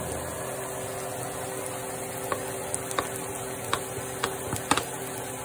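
Sliced onions sizzling steadily in hot oil in a frying pan, with a few light sharp clicks and taps from about two seconds in as paprika is shaken in from a spice bottle.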